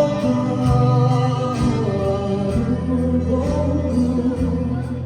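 Live music performance: a singer with instrumental backing, held notes over a steady bass line.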